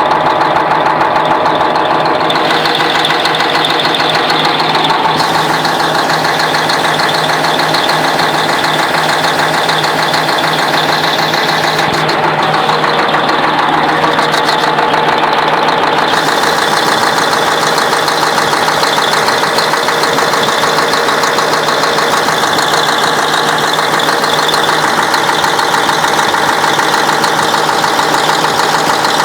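YaMZ-6581.10 V8 turbodiesel running steadily, with a knock whose cause is not known.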